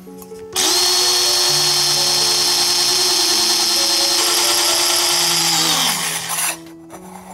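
Ryobi cordless drill boring through a thin stainless steel plate, about 1 mm thick: a loud, steady motor whine under the hiss of the bit cutting metal. It starts about half a second in and spins down, pitch falling, about six seconds in.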